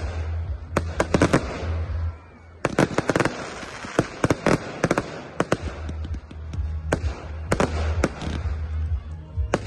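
Fireworks going off: clusters of sharp bangs and crackles from aerial shells bursting, with a short lull about two seconds in, over a steady low rumble.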